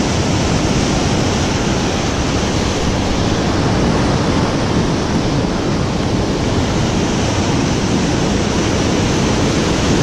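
Ocean surf washing over and around shoreline rocks: a steady, unbroken rush of white water.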